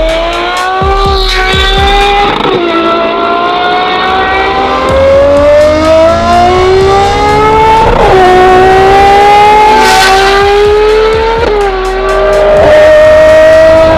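Ferrari 812's V12 engine, fitted with a full Novitec exhaust system, accelerating hard and climbing in pitch, with three quick upshifts about 2.5, 8 and 12 seconds in. A single sharp crack comes about 10 seconds in.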